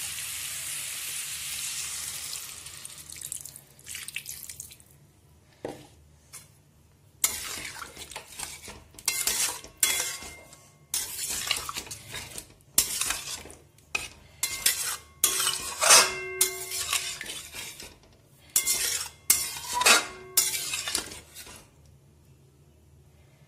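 Curry sizzling in a steel kadai, fading out over the first few seconds. Then a spatula scrapes and clinks against the pan in a run of short strokes as baby potatoes are stirred through the gravy.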